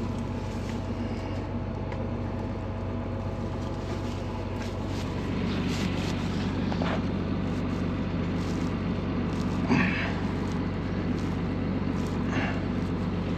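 Tractor engine running steadily at a constant speed, with a few faint knocks about two-thirds of the way through.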